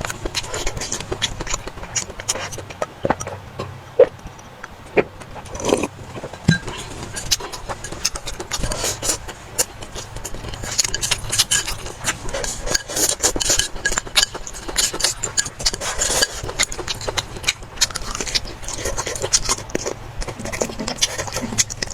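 Close-miked eating sounds: chewing, slurping and mouth noises, with quick clicks and scrapes of utensils against a bowl. A steady low hum runs underneath.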